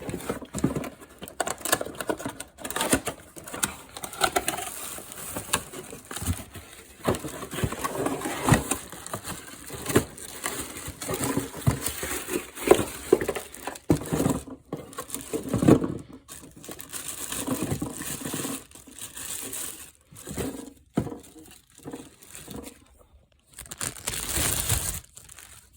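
Crinkling and rustling of plastic or packaging, with irregular clicks and knocks of things being handled.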